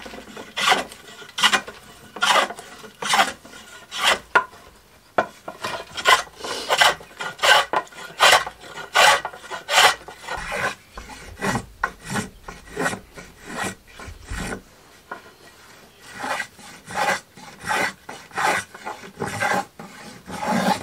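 A hand plane shaving a hoe handle of mountain hardwood, in repeated rasping strokes of about two a second, with a short pause about three quarters of the way through.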